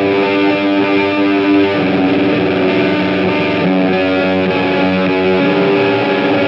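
Electric guitar played through a Tark Audio WORF distortion pedal: thick, sustained distorted chords and notes that change every second or two.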